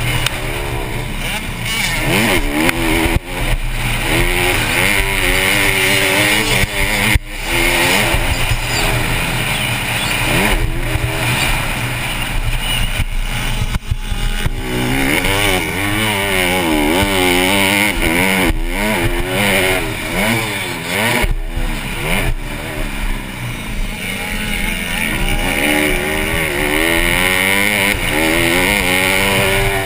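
Honda CRF150R's single-cylinder four-stroke engine revving hard through the gears, its pitch climbing and falling again and again. The throttle is chopped briefly a few times, around 3, 7 and 14 seconds in. Wind rushes over the helmet-mounted camera throughout.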